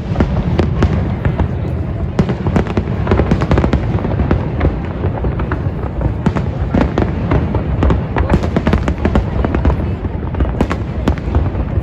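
Fireworks display: a continuous barrage of booms and sharp crackling bursts, many per second, with a deep rumble underneath.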